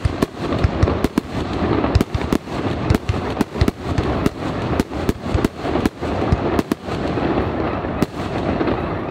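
Aerial fireworks going off in quick succession: sharp bangs at an uneven pace, about three a second, over a continuous rush of noise.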